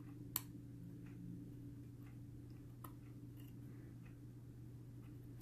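Faint clicks of steel tweezers against a vape coil and atomizer deck as cotton is worked into the coil: one sharp click about half a second in and a fainter one near three seconds, over a low steady hum.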